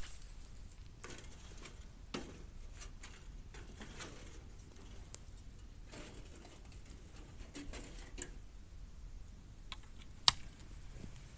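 Bamboo burning in a metal can fire, crackling with scattered small clicks and one sharp pop near the end, over a low steady rumble.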